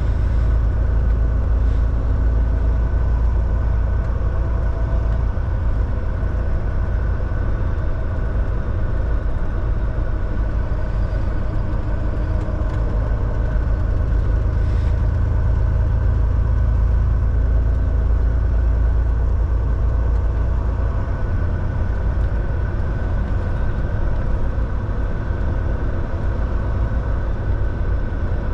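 Volvo semi truck's diesel engine and road noise droning steadily while driving, with a steady high whine on top.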